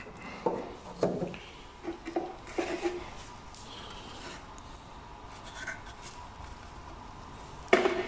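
Plastic clacks and rubbing from handling a BMW E46 front turn signal housing and its bulb socket. A cluster of short clacks comes in the first three seconds, and a sharper knock just before the end.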